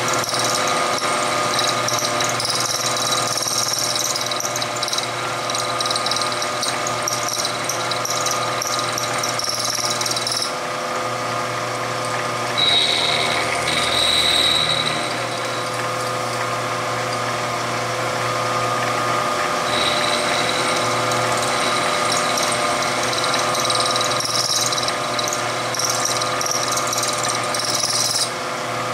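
Milling machine spindle running while a cutter machines a moon-clip cartridge seat into the steel cylinder of a Smith & Wesson Model 686 revolver, with a high-pitched cutting noise over the steady run of the machine. The cutting stops about ten seconds in, a short louder whine comes a few seconds later as the cylinder is turned 60 degrees to the next chamber, and cutting starts again about twenty seconds in.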